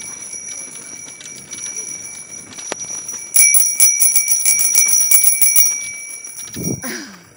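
Bicycle bell ringing: a faint steady ring, then rapid repeated dings a little over three seconds in, lasting about two seconds.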